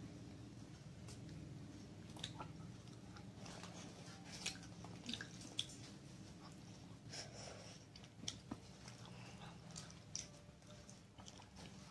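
A girl biting into and chewing a mini kebab wrap with spicy meat filling: quiet wet mouth sounds with scattered small clicks.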